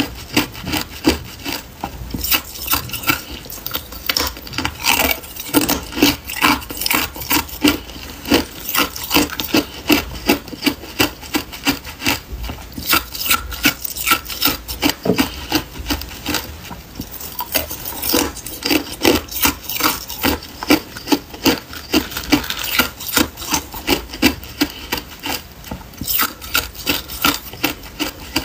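Hard clear ice cubes being bitten and chewed: a continuous run of crisp, grinding crunches, about two a second.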